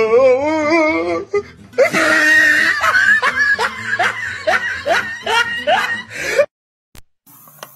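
A person laughing hard. First comes a wavering, drawn-out vocal sound for about a second, then a run of breathy laughs, each rising in pitch, about two a second. It stops abruptly about six and a half seconds in.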